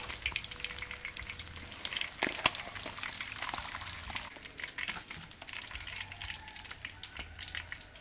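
Hot oil sizzling and crackling in a wok as a whole snakehead fish deep-fries, with a sharp knock about two and a half seconds in.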